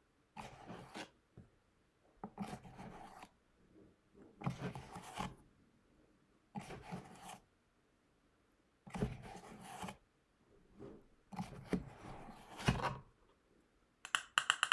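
Metal spoon scooping baking soda out of a cardboard box and scraping it into a metal funnel: about six short, faint scraping and rustling sounds with pauses between, and a few light clicks near the end.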